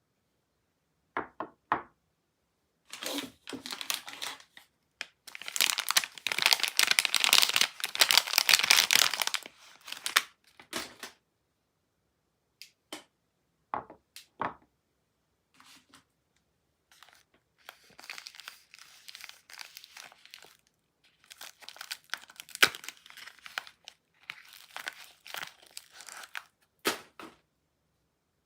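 Soap packaging being torn open and crinkled by hand. A long stretch of loud rustling and tearing comes a few seconds in, followed by a few sharp clicks and then softer, broken crinkling.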